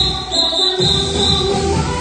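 Zumba dance music playing loud, its bass dropping out briefly and coming back just under a second in.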